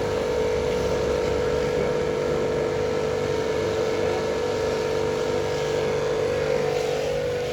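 A running engine or motor, droning steadily at constant speed with a strong, steady whine over it.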